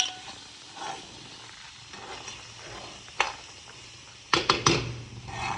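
A stirring utensil scraping and knocking against a pan as moth beans coated in spice powders are stirred, with a quick run of sharp knocks near the end.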